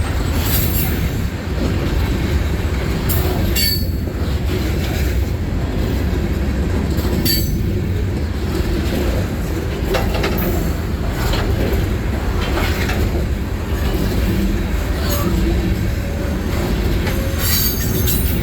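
Freight train rolling past close by: a steady heavy rumble with short wheel squeals and clicks every few seconds.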